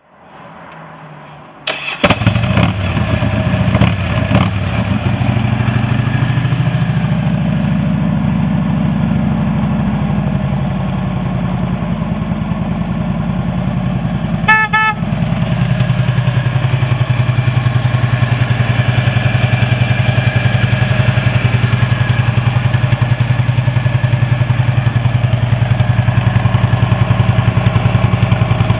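2009 Harley-Davidson Road King's Twin Cam 96 V-twin being cranked by its starter and catching about two seconds in, blipped a few times. It then runs at a raised fast idle that settles into a steady, even idle. About halfway through, the bike's horn gives one short honk.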